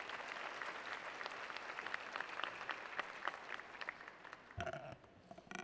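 Audience applauding, a dense patter of many hands clapping that dies away about four seconds in. Two brief, separate noises follow near the end.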